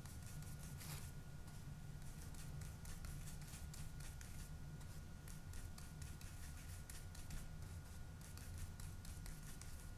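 Paintbrush dabbing and scrubbing acrylic paint on the table-top palette: a faint, irregular run of soft scratchy strokes.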